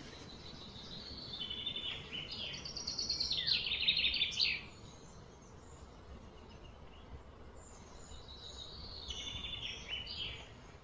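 A songbird singing: a fast run of quick repeated chirping notes that step up and down in pitch, growing louder for a few seconds and stopping suddenly, then a shorter run near the end, over faint outdoor background noise.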